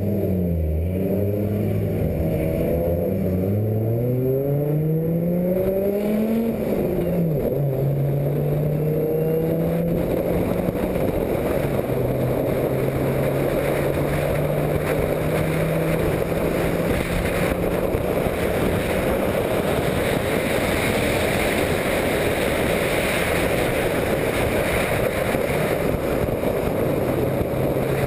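Turbocharged Audi S4 engine, heard from on board, accelerating: revs climb for about six seconds, drop at a single upshift, then hold fairly steady. A rushing noise of wind and road grows as speed builds.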